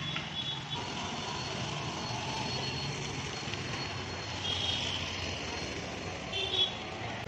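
Motorcycle engine running as it rides past close by and pulls away, over a steady wash of street traffic; two short high-pitched sounds come about two-thirds of the way through and near the end.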